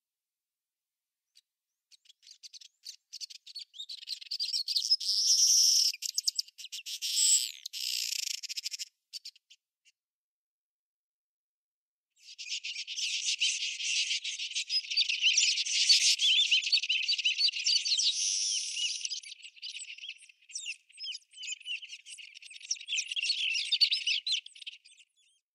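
Dense high-pitched chirping of birds and insects in the bush, in two stretches with a silent pause of a couple of seconds about ten seconds in.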